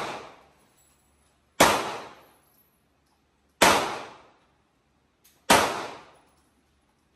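Gunshots at an indoor shooting range: three shots about two seconds apart, each a sharp crack with an echoing tail that fades within a second, plus the fading tail of a shot fired just before.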